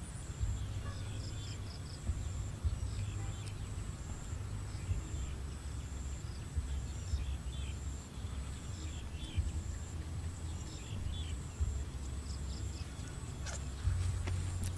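Outdoor field ambience: an uneven low rumble, scattered short bird chirps and a steady high insect whine, with a few sharp clicks near the end.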